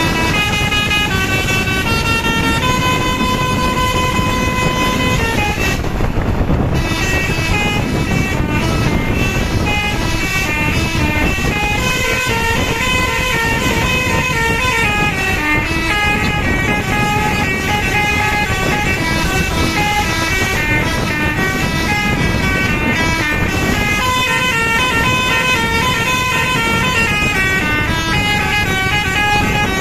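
Bus telolet horn, a Basuri multi-tone air horn, playing a fast-changing melody of several notes together, over a low rumbling haze.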